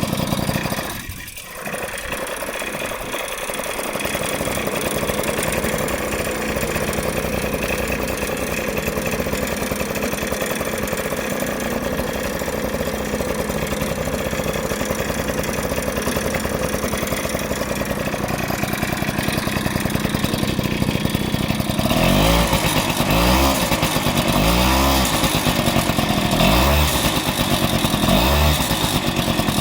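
Honda HF05 90 cc two-stroke scooter engine running steadily, then from about two-thirds of the way in revved up and let back down again and again, about every second and a half. Through it runs the clicking, swishing and rattling, worst as the throttle is released, that the owner is trying to trace; bearings in the gearbox and crank have already been replaced without curing it.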